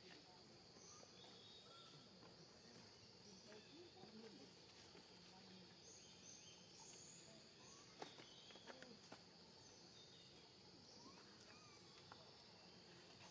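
Quiet forest ambience: a steady high-pitched insect drone with a few short bird chirps over it, and a handful of faint clicks about eight seconds in.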